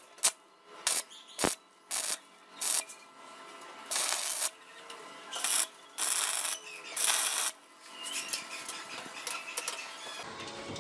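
Stick welder arc laying tack welds on steel: a few brief crackles as the arc is struck in the first three seconds, then four hissing, crackling bursts of about half a second each between about four and seven and a half seconds in.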